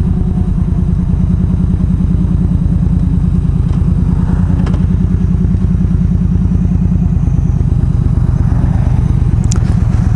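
Yamaha V Star 1300's V-twin engine running steadily under way, heard from on the motorcycle, with a low pulsing exhaust beat. Two faint clicks come through, one about five seconds in and one near the end.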